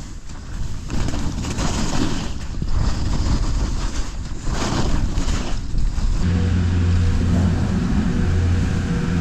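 Skis swishing and scraping through snow in several turns, with wind rushing over the helmet camera's microphone. About six seconds in, a steady low mechanical hum starts and carries on.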